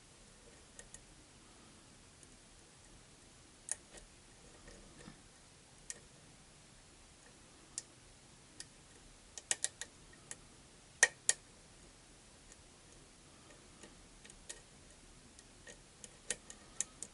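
Lock pick working the pins of a pin-tumbler challenge lock, giving scattered light metallic clicks and ticks at irregular intervals. A quick cluster comes about halfway, the two sharpest clicks follow a second later, and more come near the end. The plug is stuck and not turning.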